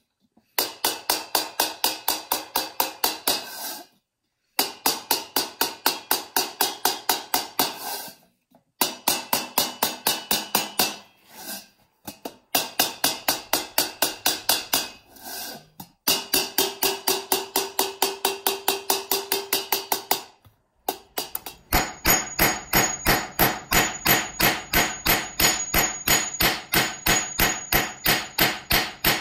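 A small mallet tapping over a hand-hammered copper lamp-shade bowl, quick even strikes about four a second in runs with short pauses between. Near the end this changes to sharper, ringing hammer blows on copper straps laid on a steel bench.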